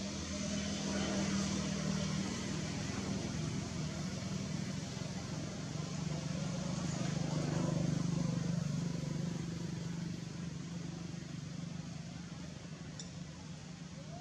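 A motor vehicle's engine running, swelling louder about a second in and again around eight seconds, then fading.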